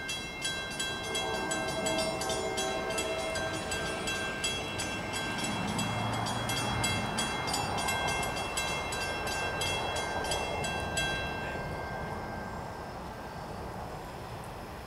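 Grade-crossing warning bell ringing in rapid, even strikes, stopping about eleven seconds in. A train horn sounds a held blast in the first few seconds.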